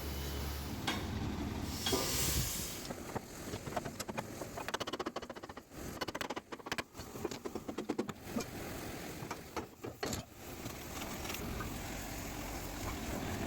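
Mechanical workshop noise: a low machine hum fades out at the start, then a run of rapid, irregular clicks and knocks over several seconds, then a steady low rumble.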